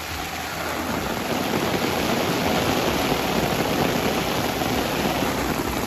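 Heavy downpour: a steady hiss of rain falling on pavement and lawns, growing a little louder about a second in.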